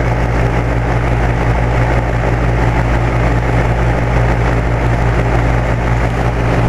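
2008 Carrier 2.5-ton R-22 air-conditioner condensing unit running steadily: the Copeland scroll compressor's even low hum under the steady rush of air from its three-bladed condenser fan.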